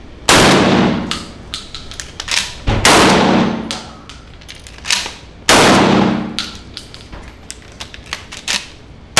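Mossberg Maverick 88 pump-action 12-gauge shotgun fired three times, about two and a half seconds apart, with hot magnum loads. Each blast rings on in the indoor range, and smaller metallic clacks fall between the shots.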